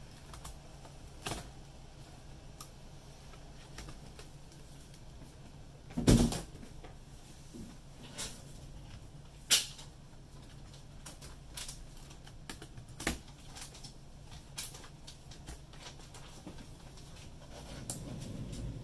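Sparse clicks and knocks of a plastic laptop chassis and keyboard being handled while a keyboard ribbon cable is fed through and routed. The loudest knock comes about six seconds in, and a sharp click follows a few seconds later.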